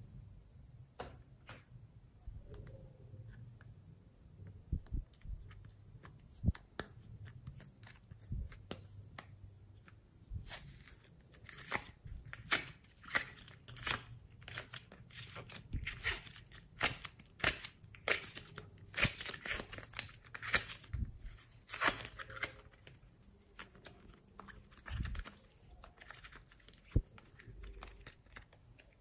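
Soft foam clay being pulled and torn from a plastic compartment tray and squeezed by hand, giving crackling and tearing sounds. The crackling is sparse at first, runs dense through the middle and thins out near the end.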